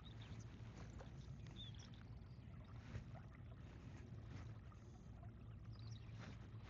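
Faint, steady ambience from a small boat on calm water: a low hum with a light wash of water sound, a few faint high chirps and one small tick about three seconds in.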